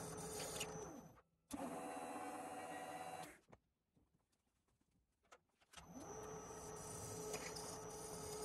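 A machine tool's electric motor running steadily, spinning down and stopping about a second in, then a brief second run, a few seconds of quiet, and a start-up with the motor's pitch rising before it runs steadily again.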